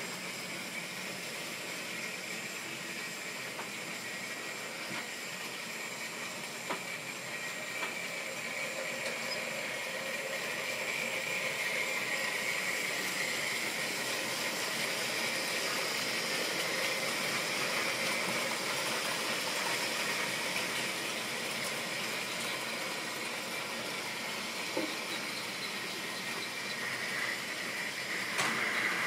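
OO-gauge model goods train running past on the layout's track: a steady whirring hum with rolling wheel noise that grows louder in the middle as the wagons pass close, with a few faint clicks.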